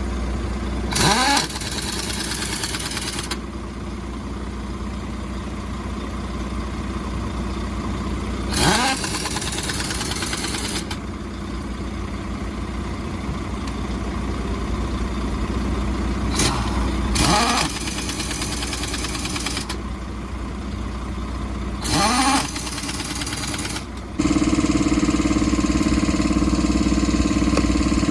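An engine running steadily, broken four times by short bursts of hiss that each begin with a rising whine. Near the end the sound turns louder and steadier.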